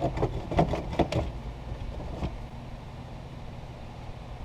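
Plastic dashboard of a 2018 Ford Focus knocking and clunking as it is worked loose from the car: several quick knocks in the first second and a half, one more a little after two seconds, over a steady low hum.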